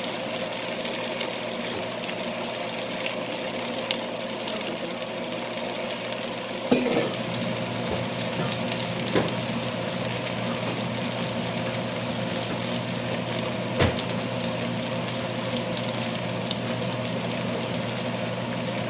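Hot dogs in barbecue sauce sizzling in a large skillet on the stovetop: a steady frying hiss. A short knock comes about 7 seconds in, with two fainter ones later.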